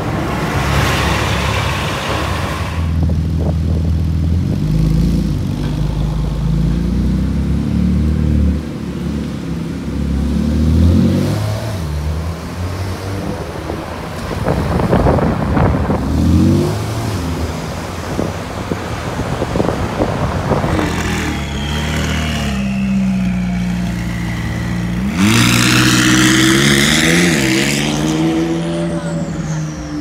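Several high-performance sports car engines revving and accelerating hard, the engine note repeatedly climbing and dropping as they shift gears. The loudest passages come around the middle and near the end.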